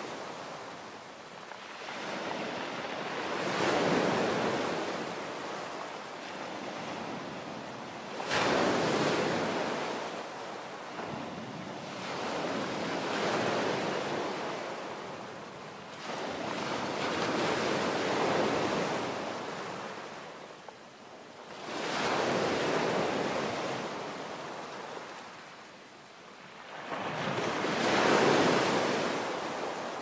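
Sea surf breaking onto a pebble beach: waves rush in and wash back in slow surges about every four to five seconds.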